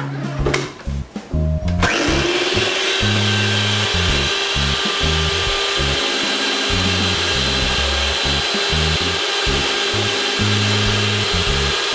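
Black & Decker stand mixer switched on about two seconds in: the motor spins up with a rising whine, then runs steadily as the beaters mix cake batter in the bowl.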